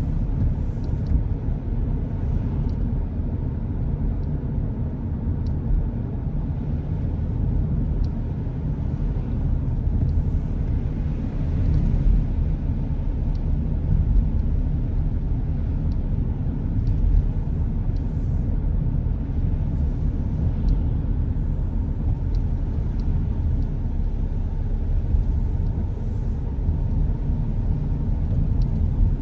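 Car driving along the road, heard from a dashcam inside the cabin: a steady low rumble of tyre and road noise with the engine underneath, and a few faint, scattered ticks.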